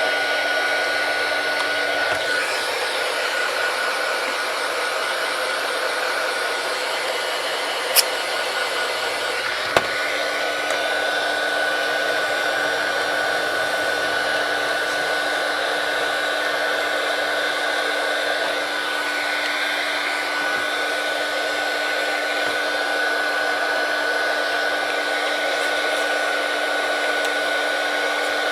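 Heat gun blowing hot air steadily, a constant whooshing hum with a steady whine, used to soften the adhesive holding the tablet's glass. Two short clicks come a couple of seconds apart, around a third of the way through.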